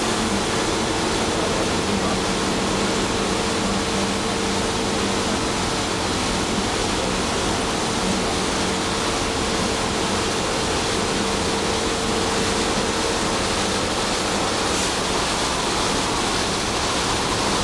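Risense CF 350 rollover car wash at work: a steady rush of spraying water with a machine hum under it, the hum fading out near the end.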